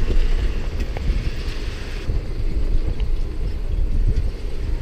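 A vehicle driving: a steady low rumble of engine and road noise.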